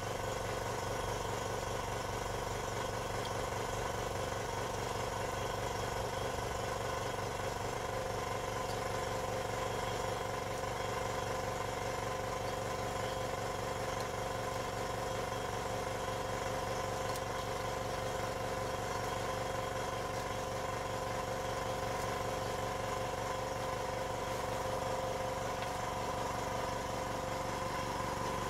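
Hydraulic press's pump motor running steadily with the ram at rest, an even mechanical hum.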